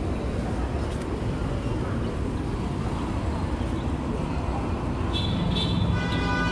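Steady city street noise: passing cars and general traffic rumble. About five seconds in, a pitched sound with several tones at once joins it and holds to the end.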